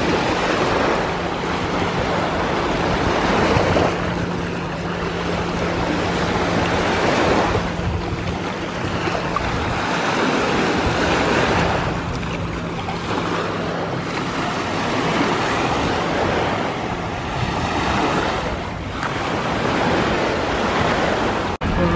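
Sea surf washing onto a sandy beach, the noise swelling and easing every few seconds as waves come in, with wind buffeting the microphone.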